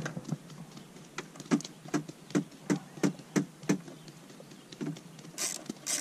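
Ratchet wrench tightening the new coil pack's hold-down bolts: a run of evenly spaced clicks, about three a second, then quicker, louder ratcheting near the end.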